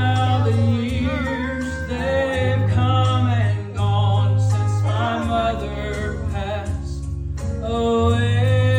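A man singing a gospel song with vibrato over instrumental accompaniment with steady low bass notes.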